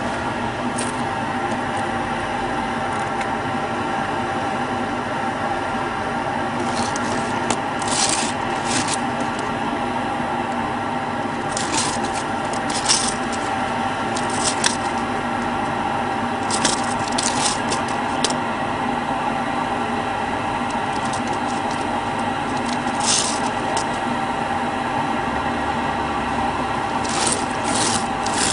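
A steady mechanical hum with short scrapes and rasps every few seconds.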